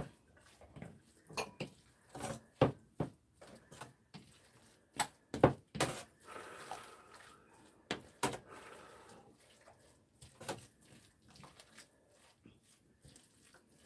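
Metal spoon clinking and scraping against a ceramic bowl as rice is mixed with soy-sauce seasoning, in scattered irregular knocks, with occasional clatter of other tableware.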